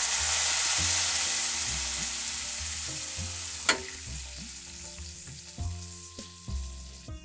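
Water poured onto vermicelli fried in hot ghee in a steel pan, sizzling loudly and dying down as the pan cools. There is a single sharp click a little past halfway.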